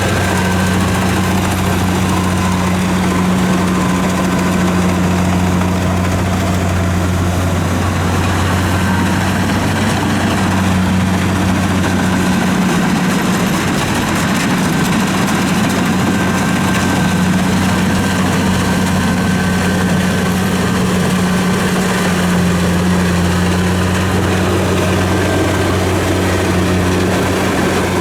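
Kubota DC-70 rice combine harvester's diesel engine running steadily, a constant low drone.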